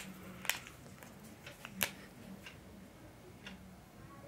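A few sharp clicks from a whiteboard marker being handled and uncapped, the loudest right at the start and another nearly two seconds in, over quiet room tone.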